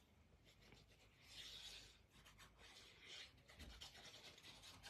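Faint rubbing of a liquid-glue bottle's tip drawn across the back of a cardstock strip as glue is laid on, with light ticks of paper being handled.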